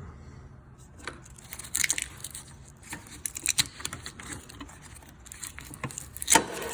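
Sticker being scraped off with a razor blade: irregular short scrapes and clicks, with one sharp, louder click near the end.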